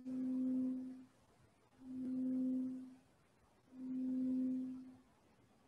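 Modular synthesizer sounding one steady note over and over, about every two seconds. Each note swells in and fades out over about a second, shaped by the envelope generator's attack and release as its settings are adjusted.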